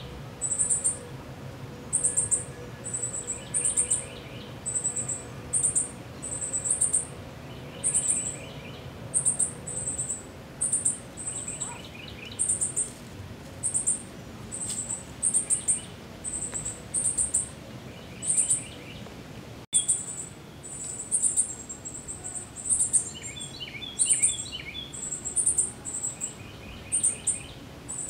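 Wild birds and insects calling: a very high, sharp chirp repeating about once a second, with a lower trilled call every few seconds and a run of quick notes near the end.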